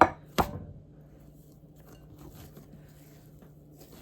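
Two sharp knocks about half a second apart at the start, then faint scattered handling sounds of dough being worked, over a faint steady hum.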